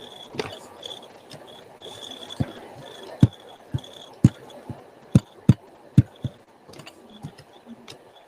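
Scattered sharp clicks at a computer, about a dozen, unevenly spaced: keys and mouse buttons being pressed while a browser is brought up. A faint high tone comes and goes in the first half.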